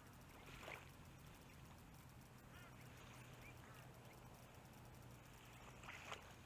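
Near silence: faint open-air ambience with a few faint, short, chirp-like calls.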